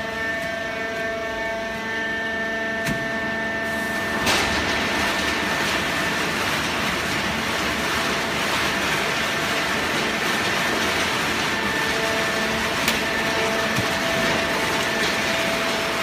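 Fully automatic horizontal hydraulic baling press running: a steady machine hum with several held tones. About four seconds in, a louder rushing noise joins it and continues, with an occasional sharp click.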